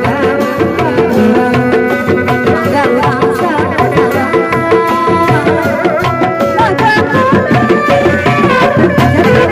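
Sundanese procession music: hand-played kendang drums and a large barrel drum struck with a padded mallet keep up a dense, fast drum rhythm, with a wavering melody line over it.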